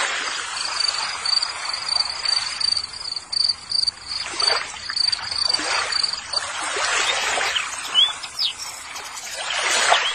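Muddy water sloshing and splashing in a plastic basin as toy vehicles are swished and scrubbed by hand, in several surges. A high, rapidly pulsing insect trill runs through the first six seconds or so, and a bird chirps briefly a couple of times near the end.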